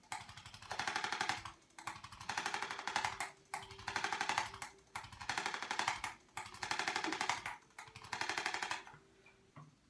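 Handheld electric percussion tool rattling off rapid-fire pulses in short bursts, about one burst a second. The bursts stop near the end.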